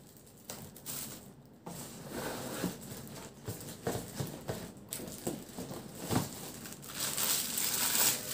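Plastic packaging wrap crinkling and rustling as blender parts are handled and unwrapped, with a few light knocks of plastic parts being set down.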